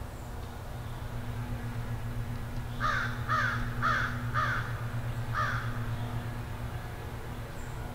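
A crow cawing five times: four quick caws about half a second apart, then one more after a short pause, over a steady low hum.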